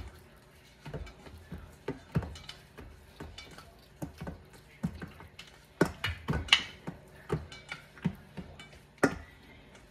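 Hands turning and patting a ball of oiled pizza dough in a metal mixing bowl: irregular soft taps and knocks of dough and fingers against the bowl, busiest a little past the middle.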